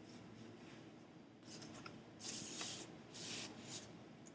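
Short rubbing strokes of a drawing tool across paper while lines are traced and coloured in. They are faint at first, with three stronger strokes in the second half.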